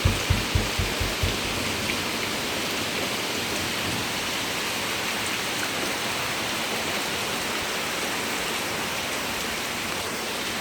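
Heavy rain falling steadily in a windstorm, a dense even hiss, with a few low gusts rumbling on the microphone in the first second or so.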